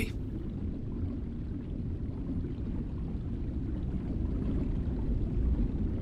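Low, steady underwater rumble with a faint watery gurgle, the ambient sound bed under reef footage.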